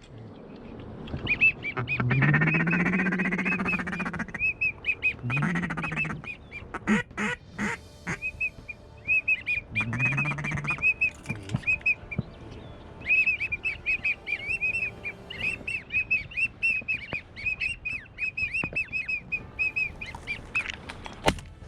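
Duck calling: long runs of short high peeping whistles, with a few longer, lower quacking calls that rise in pitch. One sharp bang comes near the end.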